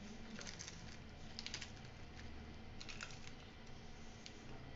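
Charred, dry leaf wrapping of a baked fish parcel crackling and rustling faintly as fingers peel it open, in small clusters of crisp clicks about half a second in, at about a second and a half, and near three seconds.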